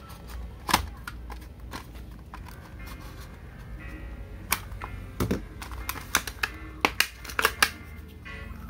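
Utility knife cutting open the clear plastic blister of a Hot Wheels card, with sharp plastic clicks and crackles, several in quick succession near the end.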